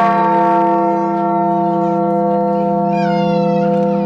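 Large church bell ringing on after a strike, a deep, steady hum with several clear overtones that carries on undiminished.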